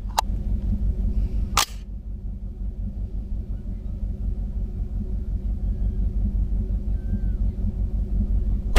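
Two sharp rifle reports from a 6mm ARC AR-15, one about a second and a half in and another right at the end, with a steady low rumble between them.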